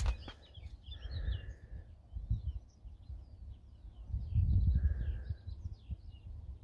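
Wind buffeting the microphone in uneven gusts, strongest about two-thirds of the way through, with small songbirds chirping and trilling throughout.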